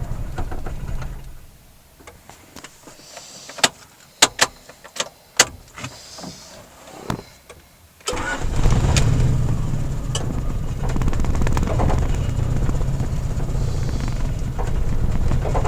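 Honda F22A1 2.2-litre four-cylinder engine shut off about a second and a half in, then several sharp clicks, then restarted about eight seconds in and settling into a rough idle.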